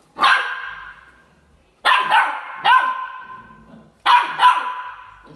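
Spring doorstop twanged by a puppy's paws: sharp boings that ring and fade over about a second, in three bursts of one to three twangs each, with a golden retriever puppy's short barks mixed in.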